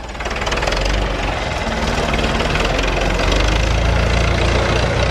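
Massey Ferguson MF 165 tractor's four-cylinder engine running close by, a steady rapid chugging that grows louder over the first second and then holds.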